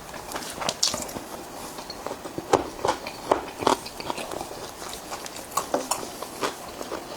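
A person chewing and biting food close to the microphone: irregular wet smacks and clicks of the mouth, with a run of louder ones about two and a half to four seconds in.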